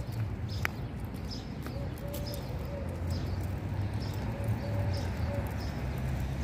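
Footsteps on pavement at an even walking pace, with a dove cooing a short phrase of low notes a couple of times, over a steady low rumble.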